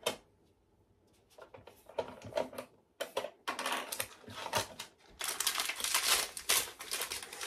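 Small plastic toy parts clicking and rattling as a plastic toy locker is unlocked with its little plastic key and its compartment doors are opened by hand. The clicks are scattered at first and come thick and fast in the last couple of seconds.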